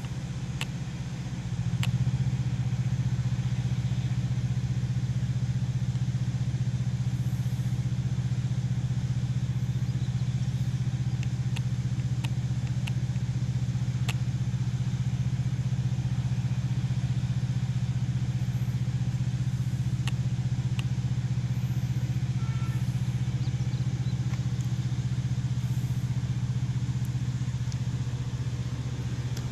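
Steady low hum of an idling vehicle engine, stepping up in level about two seconds in, with a few faint clicks.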